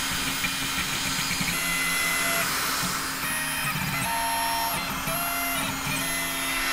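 Snapmaker Original 3D printer's stepper motors whining while printing, heard with the microphone held right at the print head. The whine is a set of steady tones that jump in pitch every half second to a second. Quite pronounced: the stepper drivers are not silent ones.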